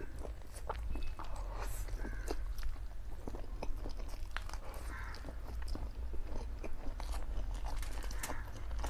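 Close-miked eating sounds of a man slurping forkfuls of saucy black bean instant noodles, with wet chewing and many small mouth clicks, over a low steady hum.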